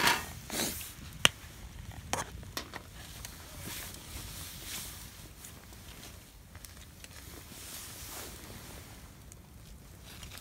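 Small eating and handling sounds: a few sharp clicks of utensils, the loudest about a second in, with short soft rustling noises in between. The glass of beer is picked up near the end.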